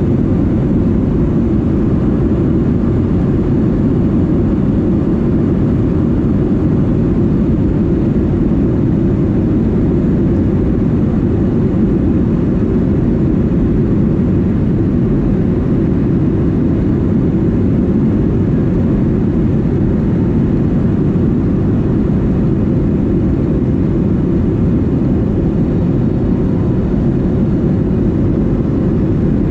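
Boeing 737-200's Pratt & Whitney JT8D turbofan engines running at climb power just after takeoff, heard inside the cabin beside the wing. The noise is loud, low and steady.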